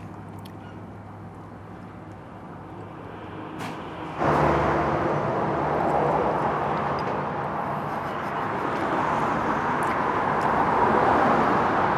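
Steady rushing outdoor background noise that comes in suddenly about four seconds in, after a quieter low hum, and holds, swelling slightly near the end.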